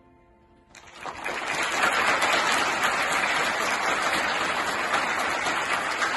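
The faint last note of the song dies away. About a second in, audience applause breaks out and goes on steadily.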